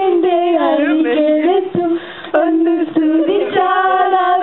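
Two voices performing into microphones: one holds a steady low hum while the other sings and vocalises a wavering line above it, with a brief break about two seconds in.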